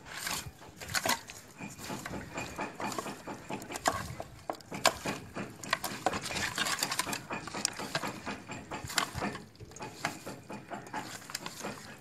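Raw fish pieces being mixed by hand with a spice coating in a stainless steel pot: fish slapping and rubbing together, with irregular knocks and clinks against the pot.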